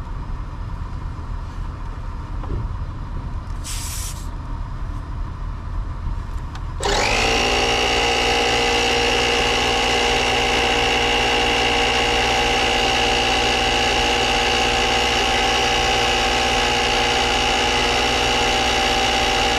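Portable tyre inflator's electric air compressor switching on about seven seconds in and running steadily with a high-pitched whine while pumping up a flat tyre. Before it starts there is a low rumble and a brief hiss a little before four seconds in.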